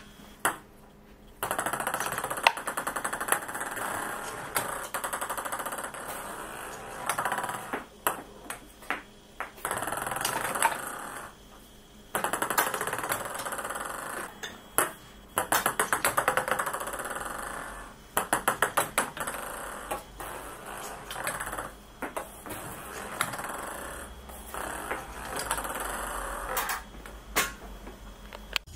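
Light plastic balls, ping-pong-sized, bouncing and clattering again and again on a wooden desk and the floor, including runs of quick bounces that speed up as a ball settles.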